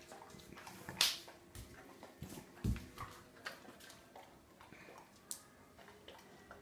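A beagle sniffing and nosing at a tiled floor: a few short snuffles and faint clicks, with a soft thump about two and a half seconds in.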